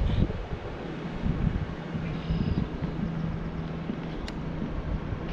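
Wind rumbling on the microphone, with a steady low engine hum that sets in about two seconds in and carries on. A single sharp click comes near the end.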